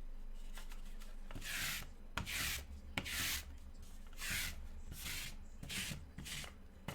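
Trading cards being slid and rubbed against each other or a surface in a series of about six short, dry swishes.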